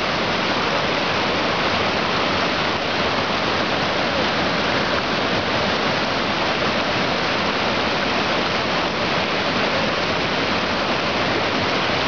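Shallow rocky stream rushing over stones: a steady, even rush of running water.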